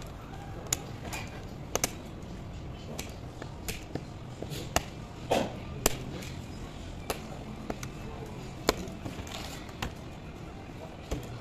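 Sharp, irregular clicks and light taps of a screwdriver and small screws against a laptop's metal and plastic chassis as it is taken apart, about one or two a second.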